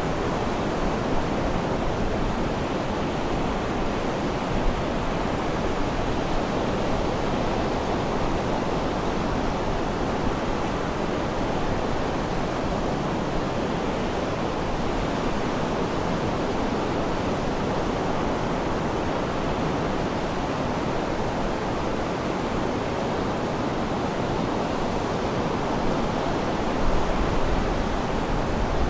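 Sea surf washing steadily, a continuous even hiss and rumble of breaking water with no distinct individual waves, swelling slightly in the low rumble near the end.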